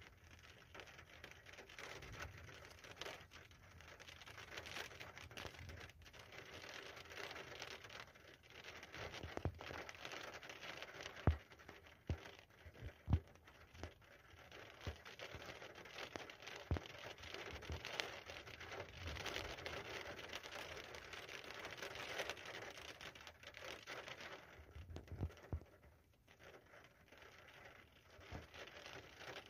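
Faint, steady hiss of light rain, with a few sharp taps scattered through it about a third to halfway in.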